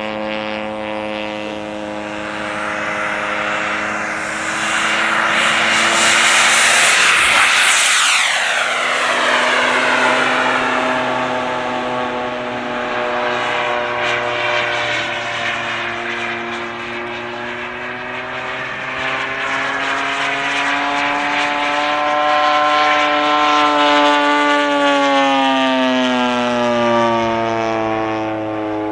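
Radio-controlled model airplane flying, its motor note steady with a hiss above it. About eight seconds in it makes a fast close pass and the pitch drops sharply, then rises and falls gently as the plane circles.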